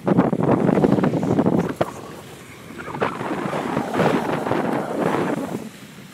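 Wind buffeting the microphone over sea water, in two loud gusts, the first at the start and the second from about halfway in.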